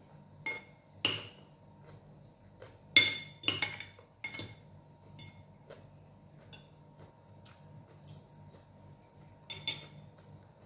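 Metal spoon and fork clinking and scraping against a ceramic dinner plate: a few sharp clinks with short ringing, the loudest about three seconds in and another near the end.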